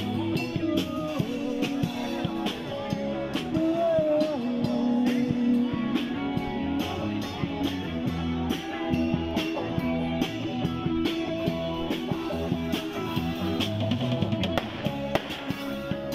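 Music with a steady drum beat and guitar.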